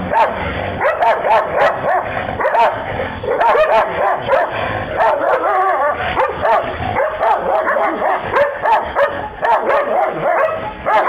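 A Šarplaninec and another dog barking at each other, with many quick barks in a row.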